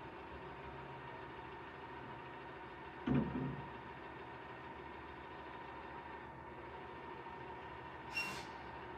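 Recycling truck idling with a steady hum, a loud thud about three seconds in and a short hiss near the end.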